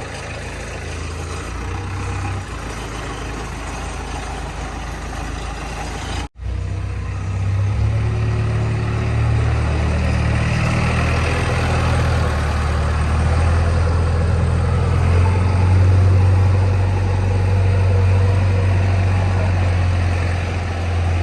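JCB 3DX backhoe loader's diesel engine running with a steady low drone. The sound drops out for an instant about six seconds in, and the engine is louder afterwards.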